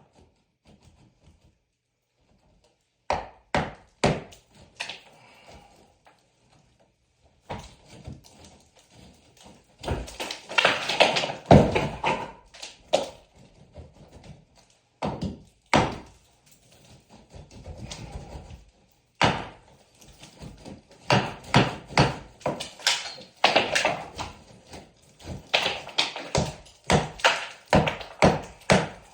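Hammer blows and knocks on wooden wall framing in irregular runs, starting about three seconds in, with rasping scrapes of wood between some strikes.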